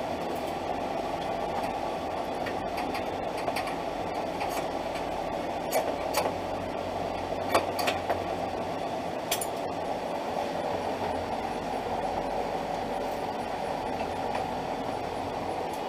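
A steady background whir, with a few sharp metallic clicks from a socket wrench as 10 mm bolts on the radiator support are worked loose.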